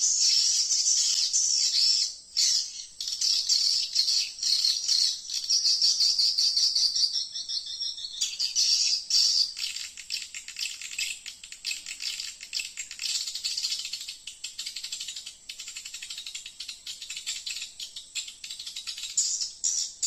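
Swiftlets calling: a dense, rapid, high-pitched chirping and twittering that thins out in the second half and picks up again near the end.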